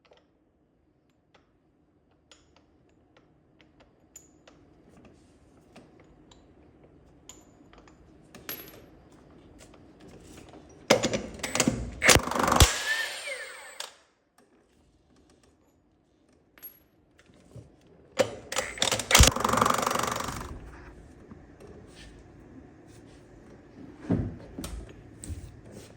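Scattered clicks and clanks of metal tools, then two loud bursts of about three seconds each from a power tool, with metal clatter between and after.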